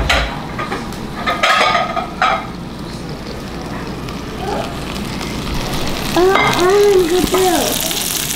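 Green beans sizzling in an oiled skillet on a gas stove, the sizzle growing louder from about halfway through, with some pot and dish clatter in the first couple of seconds.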